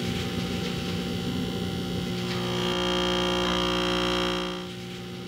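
Steady drone made of several held tones. A higher tone joins in for about two seconds midway, and the sound drops a little in level near the end.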